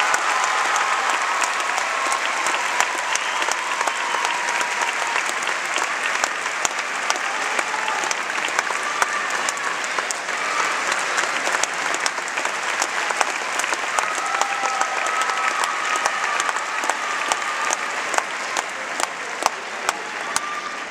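Audience applauding steadily, a dense mass of clapping with sharp individual claps standing out and a few voices calling out above it.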